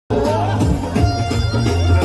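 Punjabi dance music with a heavy bass line and a gliding melody over it.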